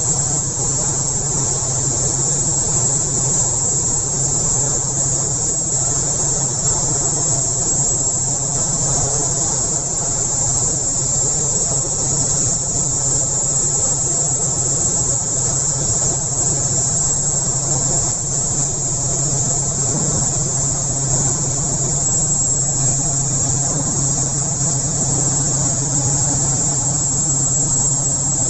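Airman 37 kW electric air compressor running steadily: a constant low hum under a strong, high hiss.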